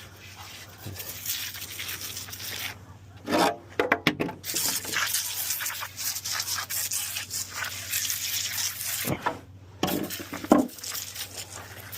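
Coil cleaner foam fizzing and crackling as it sits on a furnace blower wheel, with a few louder brief handling sounds. The sound drops out twice for a moment.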